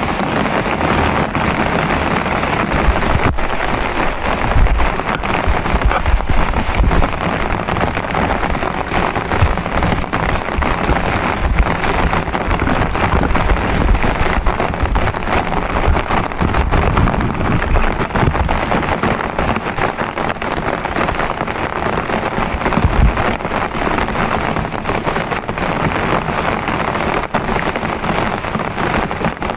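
Heavy rain falling steadily, with many separate drops ticking close by and a low rumble that comes and goes.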